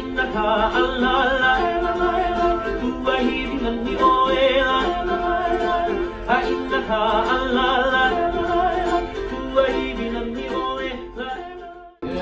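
Hawaiian song performed live: a voice singing over strummed ukuleles and guitar. It breaks off abruptly near the end.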